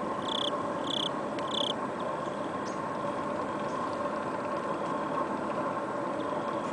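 A steady mechanical hum, engine-like, holding two even tones. Over it come short high chirps, four of them about two-thirds of a second apart in the first two seconds, like a small bird calling.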